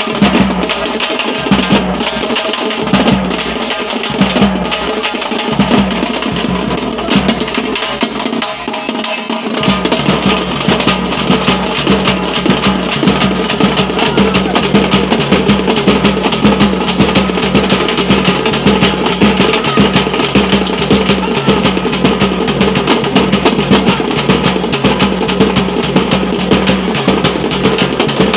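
Thappattam, Tamil folk drumming: a group of drums beaten with sticks in a fast, loud, driving rhythm. The sound grows fuller and deeper about nine or ten seconds in.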